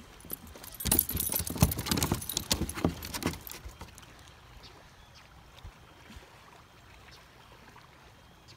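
Dachshunds shifting about on a plastic sit-on-top kayak: a rapid clatter of jingling collar tags and clicking claws for about two and a half seconds, then it dies away.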